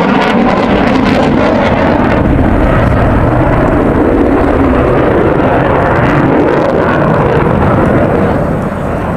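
Fighter jet in flight overhead: loud, steady jet-engine noise that eases slightly near the end.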